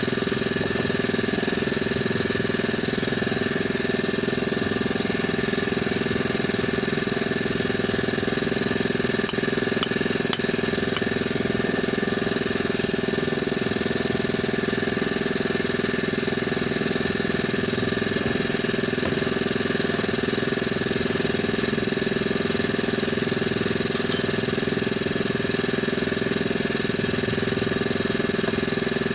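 A small engine running steadily at one constant speed, a continuous drone with a steady hum over it and no change in pitch.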